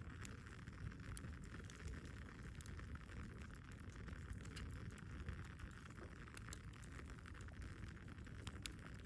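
Wood fire burning: a steady low rush of flames with scattered sharp crackles and pops from the burning wood.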